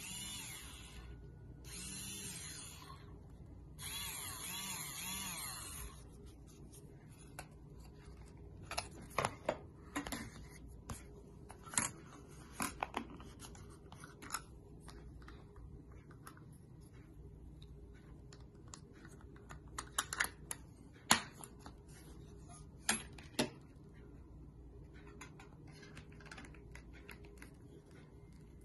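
Battery-powered handheld milk frother switched on in three short bursts in the first six seconds, its bare whisk spinning in the air with a wavering whine. After that come scattered sharp clicks and taps as the frother's plastic handle is worked and the frother knocks against its metal stand.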